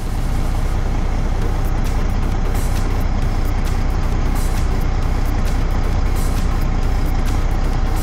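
Freightliner semi truck's diesel engine idling: a steady low rumble heard from inside the cab.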